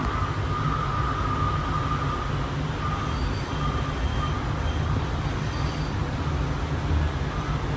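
Ride noise inside a Sound Transit Link Series 2 (Siemens S70) light rail car running along the track: a steady low rumble with a faint high whine that comes and goes.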